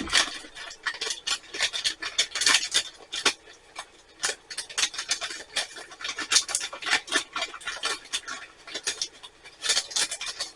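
Rapid small clicks, clinks and scrapes of a spoon against a metal tea ball as loose tea leaves are spooned into it.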